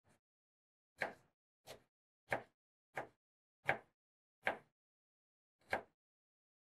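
Kitchen knife slicing through an onion and striking a cutting board: seven separate cuts, spaced a little unevenly, with silence between them.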